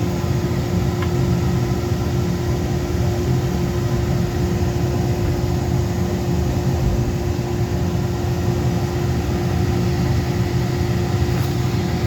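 Dremel rotary tool running steadily, an unbroken motor hum with a constant whine.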